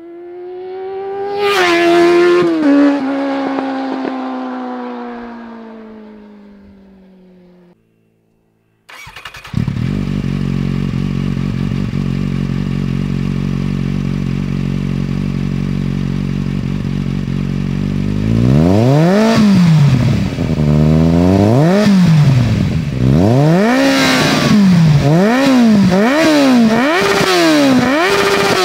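Kawasaki Z750 four-cylinder engine with an Arrow slip-on exhaust. The bike passes at speed, its pitch peaking about two seconds in and then falling away. After a brief silence the engine starts, idles steadily, and from about halfway is blipped again and again, each rev climbing and dropping back.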